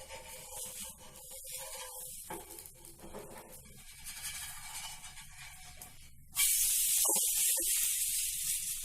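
Dosa sizzling on a hot tawa: a loud, steady hiss starts suddenly about six seconds in, the sound of ghee or batter meeting the hot pan.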